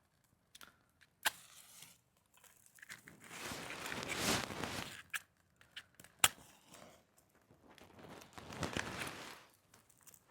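Faint crinkling and rustling in two stretches, with two sharp clicks, the louder about six seconds in.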